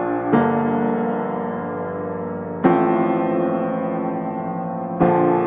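Background music: slow piano chords, three struck in turn about two and a half seconds apart, each left to ring and fade.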